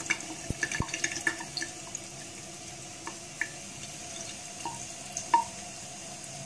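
Thin stream of water running from a bathroom sink faucet into the basin, a steady hiss with irregular small plinks and drips as a cat laps at the stream; a sharper plink about five seconds in.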